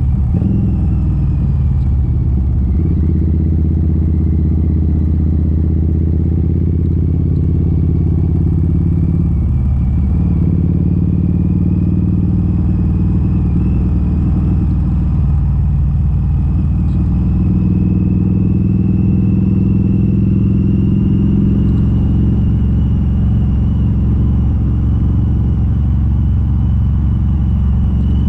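Harley-Davidson V-Rod Muscle's liquid-cooled V-twin running through Vance & Hines slip-on exhausts with the catalytic converters deleted, heard from on the bike while riding. The engine note holds steady for long stretches and dips and picks up again a few times as the throttle or gear changes.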